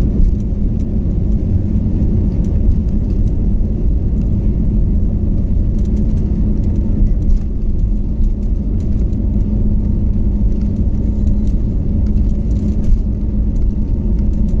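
Airbus A320 takeoff roll heard from inside the cabin: the jet engines at takeoff thrust and the wheels on the runway make a steady, loud rumble with a steady hum under it.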